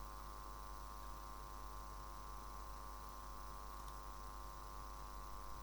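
Steady electrical hum, even throughout, made up of many fine tones stacked together.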